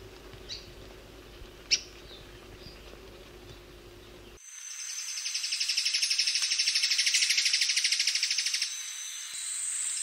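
A few short bird chips over the steady hum of an older field recording. About four seconds in, it cuts to the song of an Alagoas foliage-gleaner: a fast, dry trill of evenly spaced notes that grows louder over about four seconds, with a second trill starting near the end.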